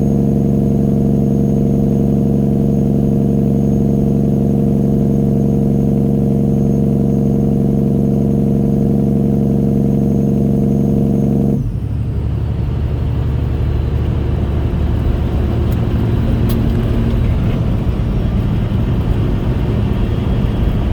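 Straight-piped diesel engine of a 1999 Peterbilt 379 truck running at a steady rpm with an even, loud drone. About halfway through, the steady tone cuts off suddenly and gives way to a lower, rougher rumble.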